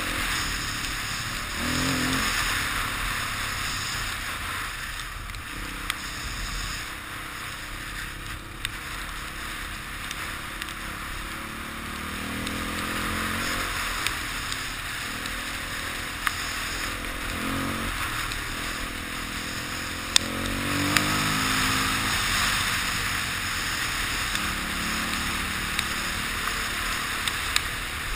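Dirt bike engine running under way, its pitch rising and falling several times as the throttle opens and closes, under heavy wind rush on the helmet camera's microphone, with a few sharp clicks.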